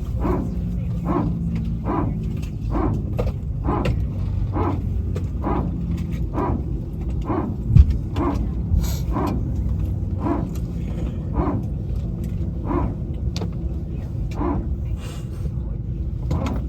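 Airbus A321neo power transfer unit (PTU) barking: short, dog-like bursts about once a second over the low rumble of the aircraft inside the cabin. A single thump comes about 8 s in.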